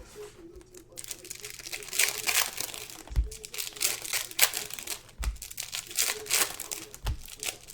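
Packaging crinkling and rustling as it is handled, in irregular crackly strokes, with three dull thumps spaced about two seconds apart.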